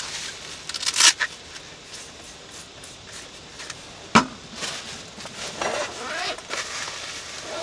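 Paper towels rustling and scraping as a cooking pot and dishes are wiped clean of thick pumpkin-stew residue. There is a loud rustle about a second in and a single sharp knock a little after four seconds.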